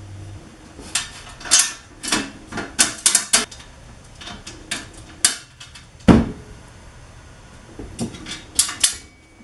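Bolts, washers and nuts clinking and clattering against the screen rack parts as they are fitted by hand, in irregular sharp clicks, with a heavier knock about six seconds in.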